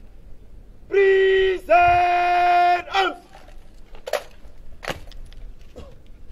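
A drill commander shouting a drawn-out parade word of command in two long held syllables, the second ending in a falling tail, then two sharp cracks about a second apart.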